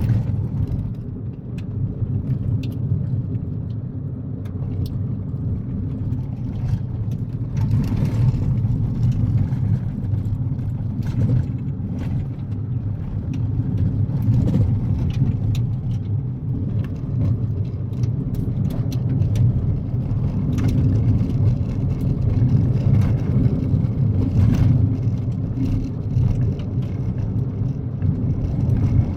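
Kia Picanto driving on a gravel road: a steady low rumble of engine and tyres on the gravel, with frequent sharp clicks scattered through it.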